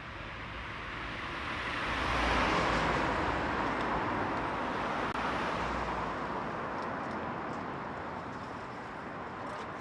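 City street traffic: cars driving past, their tyre and engine noise swelling as one passes about two and a half seconds in, then easing off.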